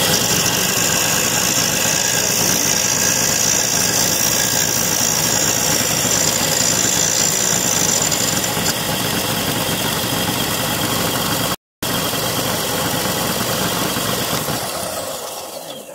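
Benchtop belt-and-disc sander running steadily, its 6-inch disc spinning, with a high hiss over roughly the first eight seconds. The sound drops out for a moment near twelve seconds and fades away near the end.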